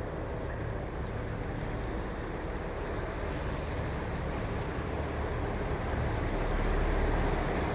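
A steady, low engine rumble, growing a little louder about six seconds in.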